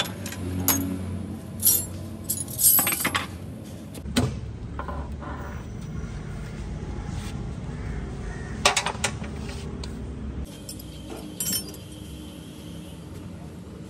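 Irregular metallic clinks and knocks, as of hand tools and metal parts being handled and set down, several sharp ones in the first few seconds and a few more later, over a steady low background hum.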